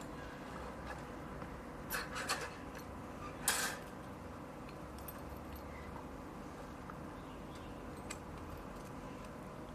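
A steady faint hum with a few light metallic clinks about two and three and a half seconds in.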